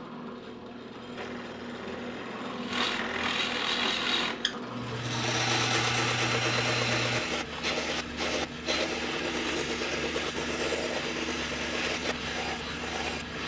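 Scroll saw running and cutting a plywood gear blank along a paper template: a steady motor hum with the rasp of the reciprocating blade. The cutting sound comes in about three seconds in and breaks off briefly a few times.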